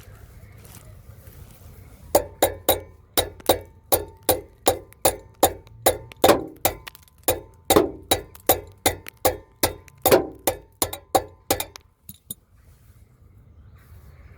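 Metal being struck over and over, about three sharp knocks a second for roughly ten seconds with a faint ring, stopping near the end.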